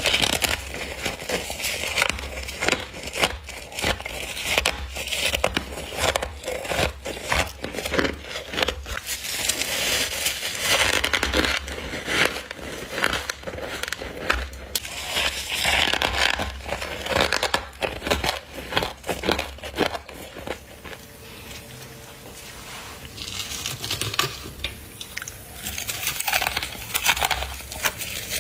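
Close-up biting and chewing of frost: dense, crackly crunching in quick bites, with a quieter lull about three quarters of the way through before the crunching picks up again.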